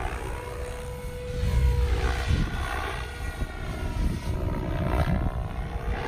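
SAB Goblin Black Thunder electric RC helicopter in flight: rotor blades whooshing with the drive's whine gliding up and down in pitch as it manoeuvres and passes.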